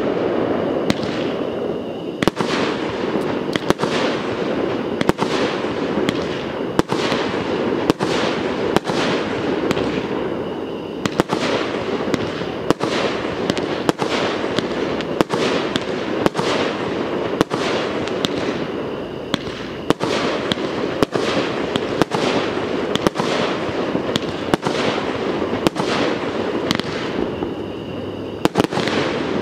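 Aerial fireworks going off in rapid succession: a frequent run of sharp bangs and pops, one to three a second, over a steady rushing background noise.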